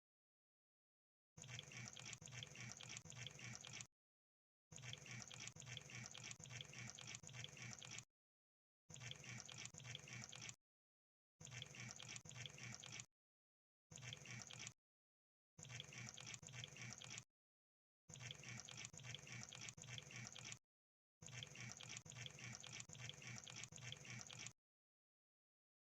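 Crab sound effect: dense, fine clicking and crackling in eight separate bursts of one to three seconds, each cut off by dead silence.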